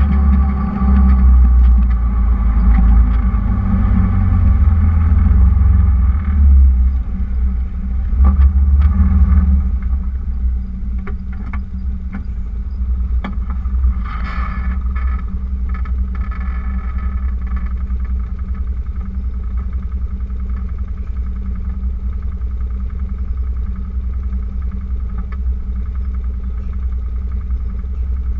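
Wind rumbling on an action camera's microphone, heavy and uneven with a few knocks for the first ten seconds or so, then lower and steadier.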